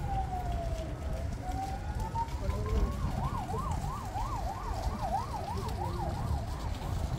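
Emergency vehicle siren: a slow wail falling and then rising in pitch, switching about three seconds in to a fast yelp of roughly three sweeps a second, over a low background rumble.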